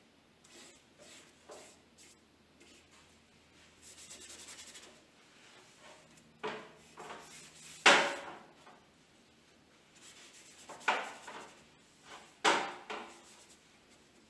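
Paintbrush rubbing oil paint onto paper in a series of strokes: soft at first, a quick rapid scrub about four seconds in, then four louder strokes in the second half.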